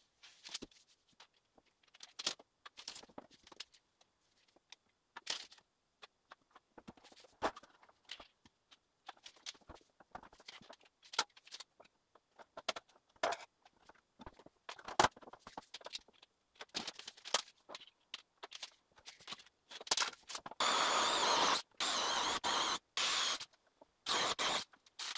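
Scattered knocks and scrapes of handling and moving about, then from about 20 seconds in a power drill running in several short bursts, drilling a lamp-spot hole into the ceiling board.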